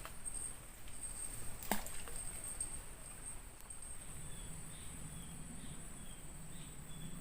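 Insects chirring steadily at a high pitch, with one sharp click about a second and a half in and a low hum joining about halfway through.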